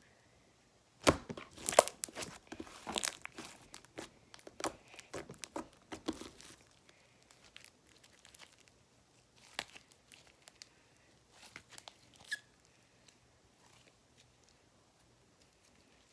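Sticky slime being squished and stretched by hand, giving a dense run of sharp clicks and small pops of trapped air for several seconds, then only scattered pops.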